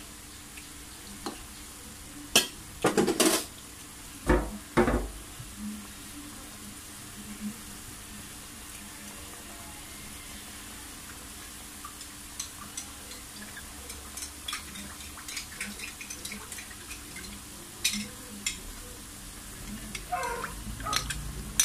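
Noodle gravy simmering in a metal wok, with a few loud metal knocks of a ladle against the wok about two to five seconds in and lighter clinks later. Near the end a spoon scrapes as it stirs cornflour slurry in a small bowl.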